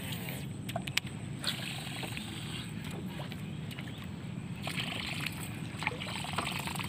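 Water sloshing and lapping against the hull of a small fishing boat over a steady low rumble, with a few scattered light clicks.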